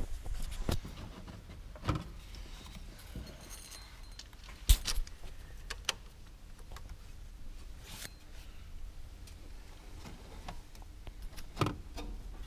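Scattered metallic clicks and knocks from parts and tools being handled in a car's engine bay while a new timing belt tensioner pulley is fitted, with one sharp click about a third of the way in the loudest. A low steady rumble runs underneath.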